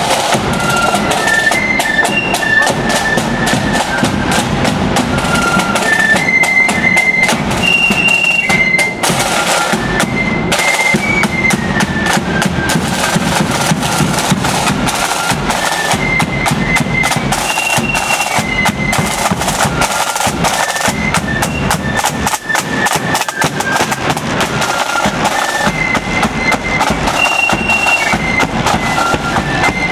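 Marching flute band playing a tune: flutes carry a high stepping melody over dense side-drum rolls and a bass drum.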